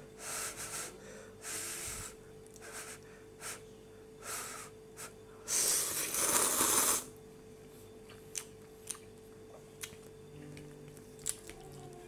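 Slurping of spicy Korean instant ramen noodles: several short slurps, then one long, loud slurp about halfway in. After that, scattered small clicks of chewing and chopsticks, over a faint steady hum.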